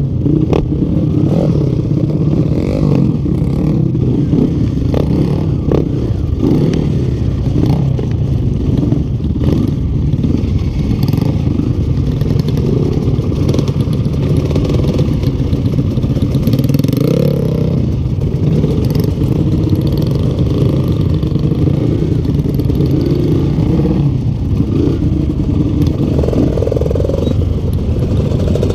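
Yamaha Vixion trail bike's single-cylinder engine running under way, its pitch rising and falling a little with the throttle, with scattered clattering knocks from the bike on the rough track. The owner says the engine is leaking compression and pulls weakly.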